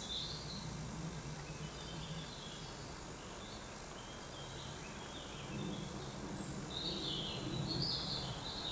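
Quiet outdoor ambience with faint birds chirping here and there, the calls more frequent in the last couple of seconds.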